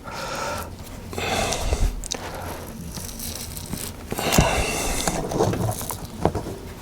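Intermittent scraping and crackling as a pry tool works under a heat-softened, glued touch-screen panel, peeling the adhesive in short strokes.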